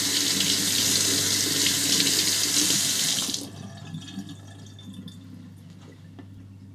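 Kitchen faucet running, with water splashing over a blue natural whetstone held under the stream. The water is shut off about three and a half seconds in, and a few faint clicks follow.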